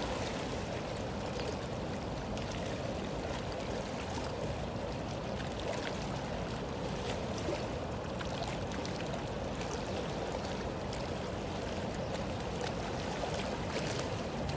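Steady rushing of fast-flowing river water churning past rocks.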